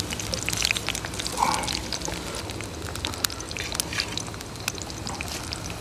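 Sliced onions sizzling in hot oil in a steel wok over a wood fire, with sharp crackling pops that are thickest in the first couple of seconds and then thin out.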